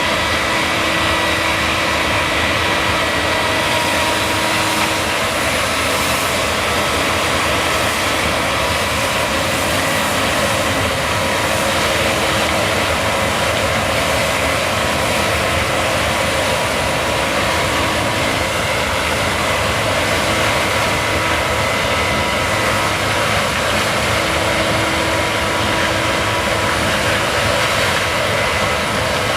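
Case combine harvester running steadily while harvesting barley: a loud, even machine noise with a few faint steady whines through it.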